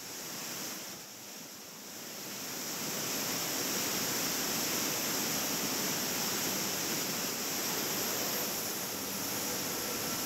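Steady rushing noise of wind and the cruise ship's churning wake, growing louder about two seconds in.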